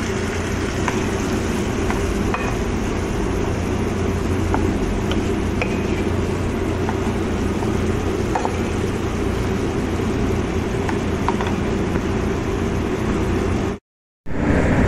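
Steady hum and rush of a kitchen exhaust fan running, with a few faint light clicks of stirring in the pan. The sound cuts out for a moment near the end.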